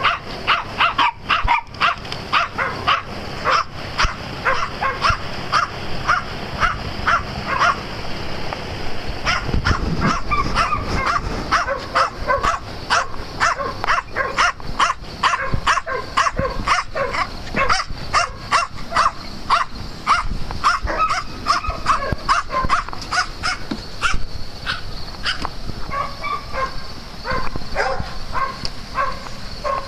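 Small dogs barking in a steady run of short, sharp barks, about two or three a second, almost without a break.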